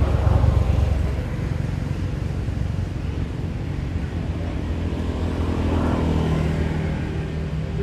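A motor engine running with a low, steady hum, louder in the first second and again around six seconds in before easing off.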